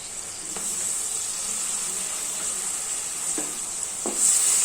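Small pieces of chicken frying in hot oil in a frying pan, a steady sizzle that grows louder near the end, with a few faint knocks.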